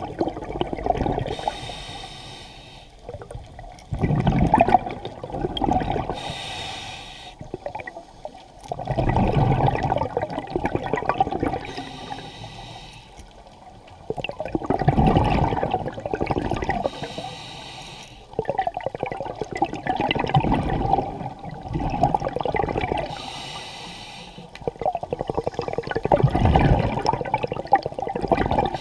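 Scuba diver breathing underwater through an open-circuit regulator: a short hiss on each inhale, then a longer, lower burble of exhaled bubbles. About five breaths, one every five or six seconds.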